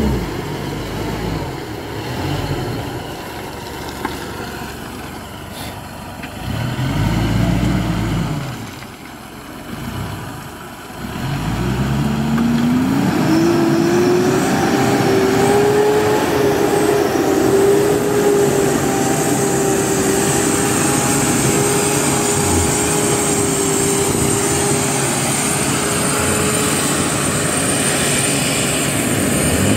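Mitsubishi Triton pickup's engine working hard in deep mud: uneven revving at first, then from about twelve seconds in a whine that rises and holds at one steady pitch while the truck climbs.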